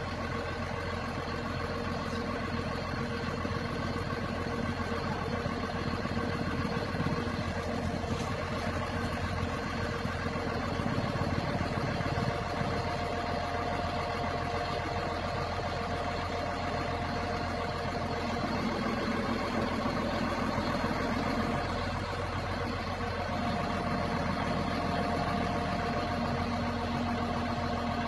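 Truck engine idling steadily, a continuous drone with a faint steady whine over it that grows a little stronger in the second half.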